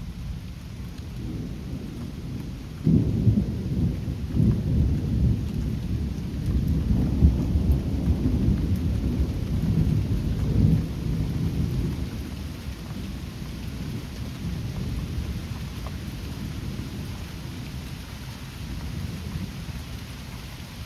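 Thunder rumbling over steady rain. The thunder breaks sharply about three seconds in, rolls on in several surges and then dies away, leaving the rain.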